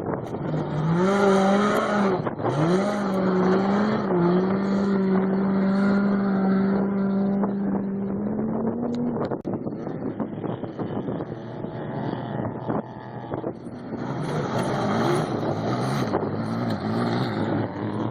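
Off-road race vehicles' engines going past. One engine climbs in revs about a second in, dips briefly, then holds a steady pitch for several seconds before falling away near nine seconds. A second vehicle comes through near the end.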